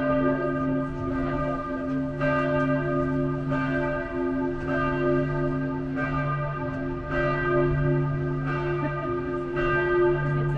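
Church bells ringing in a steady peal, a fresh strike about every second and a quarter, with low ringing tones sustaining between the strikes.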